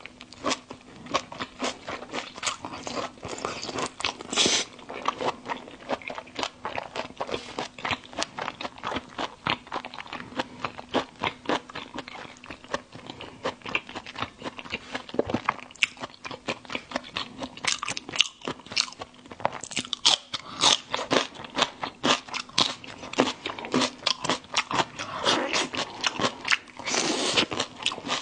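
Close-miked crunching and chewing of a shell-on marinated prawn: a dense, uneven run of short crunches with louder bites scattered through.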